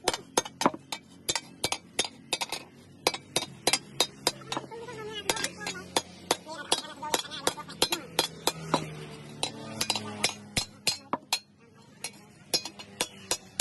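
Hand hammer striking steel on an anvil in quick, regular blows, about three a second, each with a bright metallic ring, as the shovel-shaped piece is bent. The blows pause briefly near the end, then resume.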